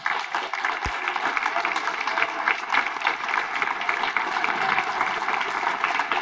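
A crowd in the council chamber applauding, dense steady clapping from many hands. There is a brief low thump about a second in.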